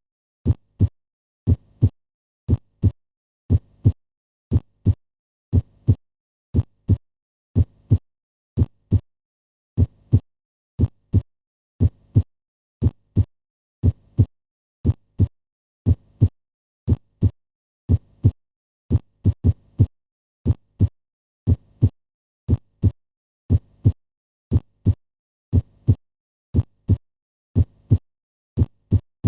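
Normal heart sounds: a steady lub-dub, the first (S1) and second (S2) heart sounds coming as pairs of short, low thumps about once a second.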